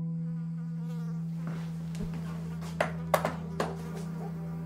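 A steady low buzzing drone, with a quick run of four sharp clicks and knocks about three seconds in, as things on a cluttered kitchen counter are handled.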